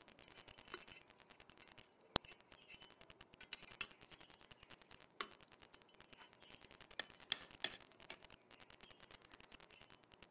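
A metal spoon clinking against a ceramic plate several times while cutting and lifting pieces of vegetable pancake, the sharpest clink about two seconds in, over a faint hiss.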